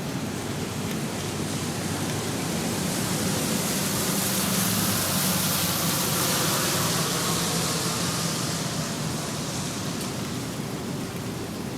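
Steady rain on pavement, with a vehicle passing on the wet road: its tyre hiss swells to a peak about halfway through, then fades away.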